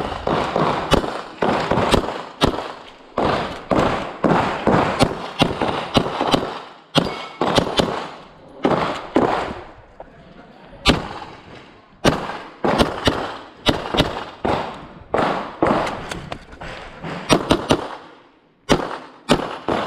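Handgun shots fired in rapid strings and quick pairs during an IPSC course of fire, each sharp report followed by a short echo, with brief pauses of about a second between groups.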